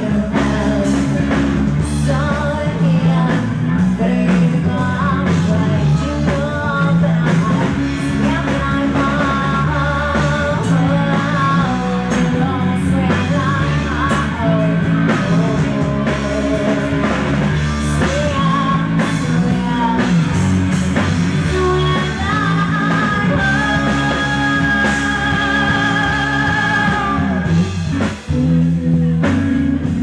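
Live rock band: a woman singing lead over electric guitars and a drum kit.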